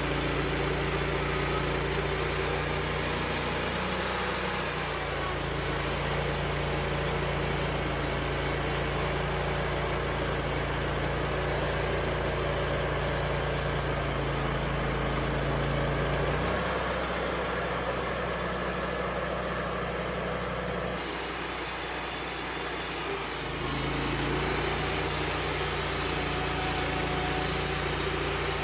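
Wood-Mizer LT35HD sawmill's engine running steadily. Its note changes about two-thirds of the way in, then drops off for a couple of seconds before picking back up.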